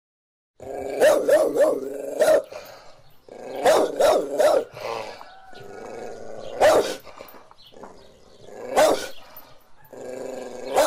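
A dog barking and growling, starting about half a second in: quick runs of three or four barks alternate with single barks, with growling between them.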